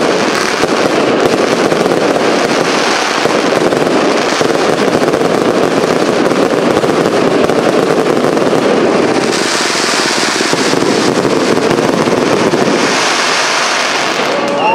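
A cake firework (a battery of pre-loaded tubes) firing a dense, rapid, continuous barrage of shots and crackling bursts. It stops near the end.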